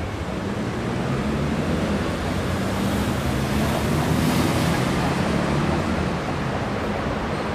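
Old Duewag tram's motors humming low and steady as it moves slowly along the track, under a broad rushing noise that swells to its loudest about three to five seconds in and then eases off.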